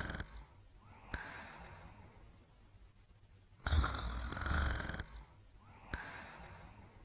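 Slow, regular snoring. A loud snore fades out just after the start and another comes about 3.7 s in, lasting over a second, with a softer breath about a second in and another about 6 s in.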